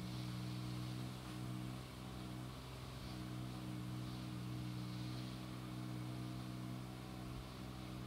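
A steady low machine hum, like an engine running at a constant idle, holding the same pitch throughout.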